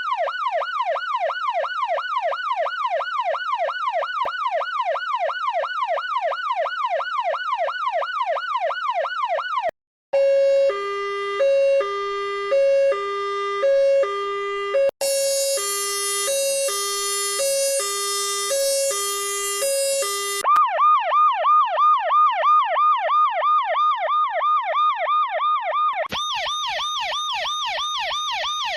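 A run of emergency-vehicle siren sounds, one after another. First a fast rising-and-falling yelp for about ten seconds. After a brief break comes a two-tone hi-lo siren, alternating about once a second, with a shrill high tone added partway through. Then it switches back to a fast rising-and-falling wail.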